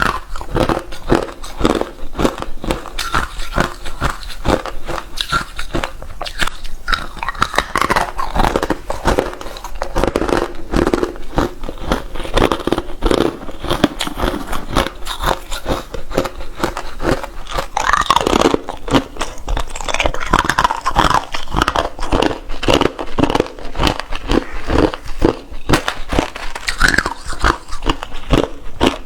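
Hard ice being bitten and chewed close to the microphone: a dense, continuous run of sharp crunches and cracks.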